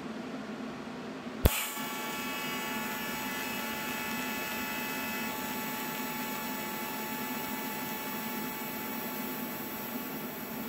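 Alpha 200x TIG welder striking an arc with a sharp crack about one and a half seconds in, then the arc running steadily with a hiss and a high buzz as a bead is laid on the plate.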